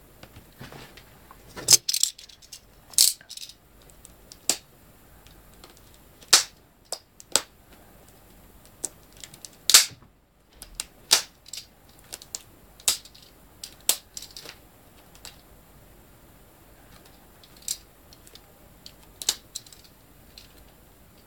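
Plastic DVD cases being handled and opened: irregular sharp clicks and snaps, about a dozen of them, with pauses of a second or more between.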